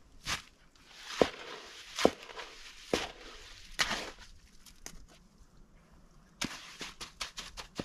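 A tool working wet concrete mix in a footing hole: sharp scraping strokes about once a second, then a quicker run of strokes near the end.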